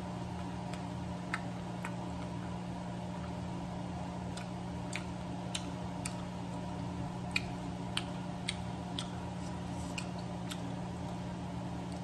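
Close-up eating sounds: scattered sharp mouth clicks and smacks from chewing, irregular and about one or two a second, over a steady low hum.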